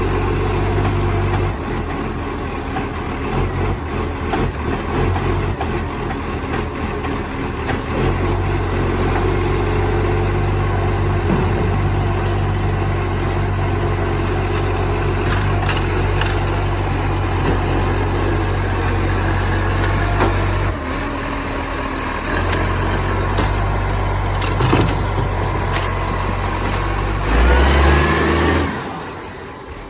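Diesel engine of a flat-faced Acco-cab garbage truck running loud with a massive exhaust leak. It surges louder near the end, then drops away sharply.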